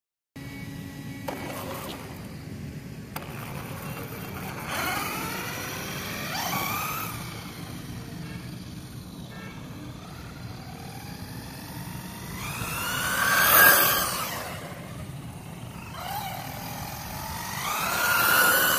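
Brushless electric motor of a ZD Racing 1/10 RC monster truck whining at high speed, the pitch rising as it accelerates and falling as it passes, several times. The loudest pass comes about three-quarters of the way through, over a steady low rumble.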